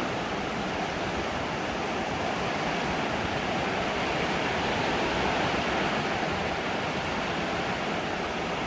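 Heavy hurricane rain pouring steadily onto the metal porch awning overhead and the yard, a dense, even hiss that swells slightly about halfway through.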